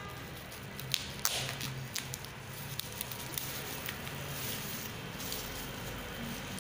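Thin plastic bag crinkling and rustling as it is handled, with a few sharp crackles between about one and two seconds in.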